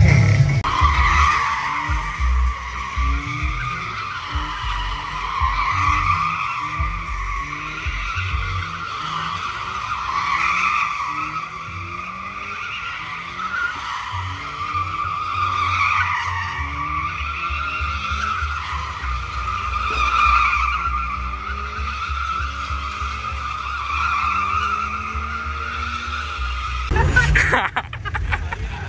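A car drifting: its tyres squeal in a long, wavering screech over the engine revving again and again. The squeal stops near the end.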